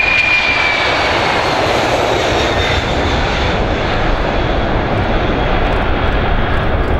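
Boeing 747-400's four jet engines at takeoff thrust as the airliner lifts off and climbs past: a loud, steady rush and rumble, with a high whine that falls in pitch in the first second or so.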